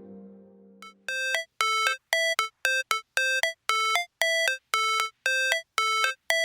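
Background music: a fading chord, then from about a second in a short, bright synthesizer note repeated two to three times a second.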